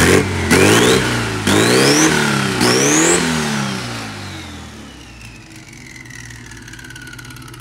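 Turbocharged air-cooled VW Beetle flat-four engine revved three times by hand at the carburettor throttle, each rev higher than the last. A turbo whistle rises with each rev, then falls slowly as the engine drops back to idle.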